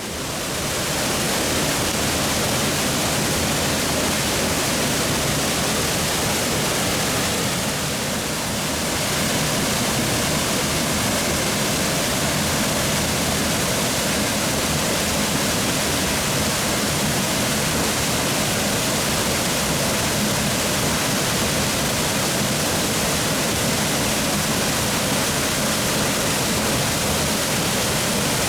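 Small plunge waterfall dropping straight down onto bedrock: a steady rush of falling water, briefly a little softer about eight seconds in.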